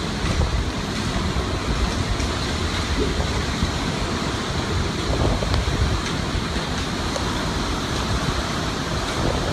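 Hurricane wind and driving rain: a steady, loud rushing, with the wind buffeting the microphone in a low rumble.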